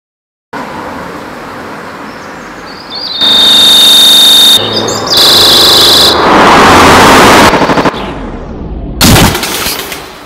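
Bird chirps over a noisy outdoor background, broken into from about three seconds in by a very loud, distorted, clipped buzzing tone that runs for about four seconds. A falling sweep follows, then a short loud burst near the end.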